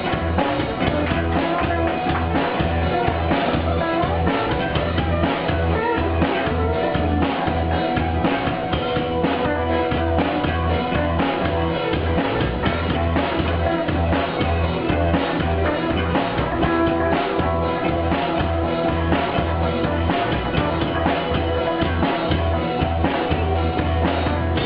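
Drum kit played along to a rock-style song with singing and guitar, with a steady low kick-drum beat and sharp drum hits.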